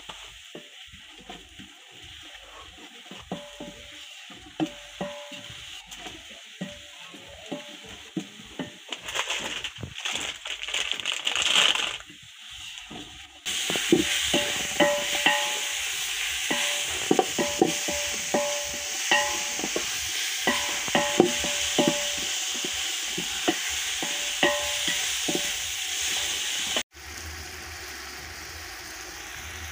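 A wooden spoon stirring and knocking against an aluminium pot of whole spices frying for pilau, each knock ringing briefly over a sizzle that gets louder about halfway through. Near the end it cuts to a steady sizzle of meat and chopped tomatoes frying in the pot.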